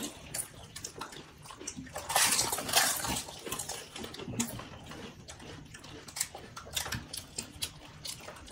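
Panipuri being eaten: crisp puri shells crunching and the spiced water sloshing and slurped, among small clicks, loudest for about a second two seconds in.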